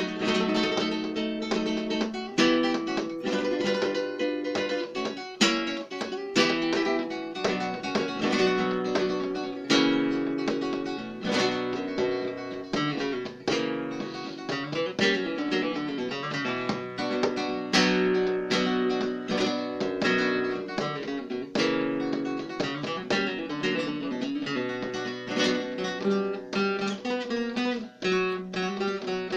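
Solo flamenco guitar: plucked passages broken up by sharp strummed chord strokes, played in a rhythmic compás.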